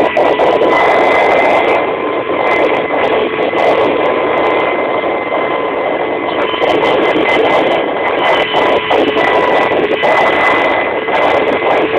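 Kamov Ka-26 helicopter in flight, heard from inside the cabin: its twin radial piston engines and coaxial rotors make a loud, steady din with a steady high whine running through it.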